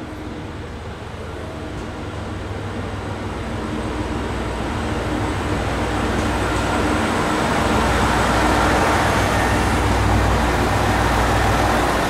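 Two-car ET122 series 1000 diesel railcar pulling away from a station, its diesel engine running under power and its wheels rolling on the rails. It grows steadily louder as it draws near and passes close by, and is loudest in the last few seconds.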